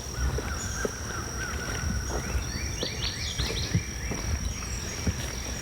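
Small birds singing: a quick run of short repeated chirps, then a higher burst of chirps in the middle, over a steady thin high-pitched tone and a low outdoor rumble with a few faint clicks.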